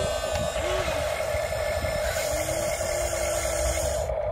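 Electric motors of a Huina 1593 RC excavator running with a steady whine as the boom lowers and the bucket digs into mud.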